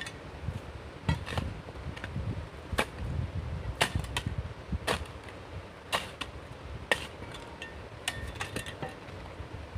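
Hammer blows striking stone: sharp, irregular knocks about once a second, as the stone is worked and repaired.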